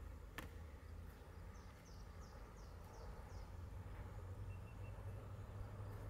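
Low, steady rumble of a distant Indian Railways diesel locomotive approaching, growing slightly louder towards the end. A bird calls a quick run of about six high, falling chirps in the middle, and there is a single sharp click about half a second in.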